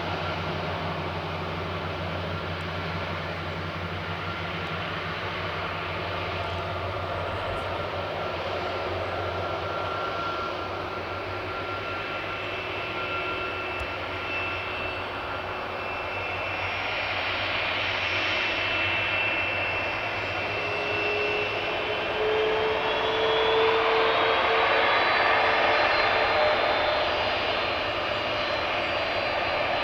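Boeing 747-400 freighter's jet engines running with a steady whine; about two-thirds of the way through the sound grows louder and the whine rises in pitch.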